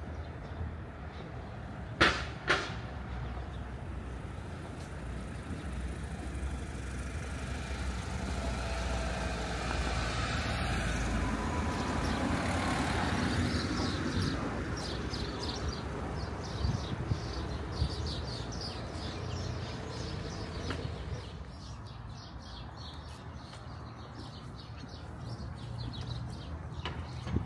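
A motor vehicle passing along the street, its sound building to a peak about halfway through and then fading away. Two sharp knocks come a couple of seconds in.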